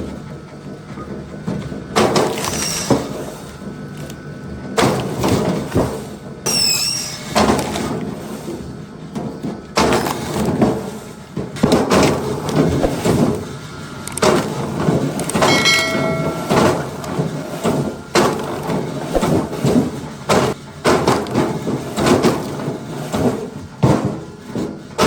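Log splitter working through logs: a run of repeated cracks, knocks and splitting of wood at irregular intervals, with a brief high squeal about six seconds in and a short ringing squeal around sixteen seconds.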